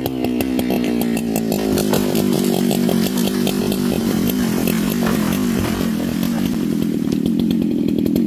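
Husqvarna two-stroke chainsaw running at high revs under load, cutting into a big tree trunk, with steady engine pitch and a constant rattle of chips. The engine pitch picks up a little about seven seconds in.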